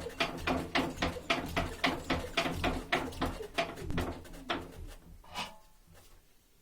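ZAZ-968M's air-cooled V4 engine running with a sharp, regular knock about four times a second, the engine fault the owner is demonstrating. The running and knocking fade and stop about five seconds in, as the engine winds down.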